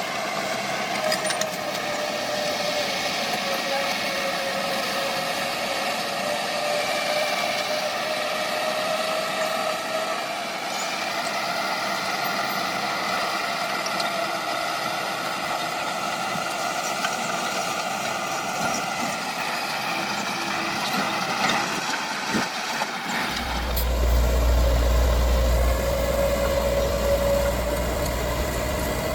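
Diesel engine of heavy earthmoving machinery running, its pitch drifting slowly up and down. A deep low rumble joins about 23 seconds in.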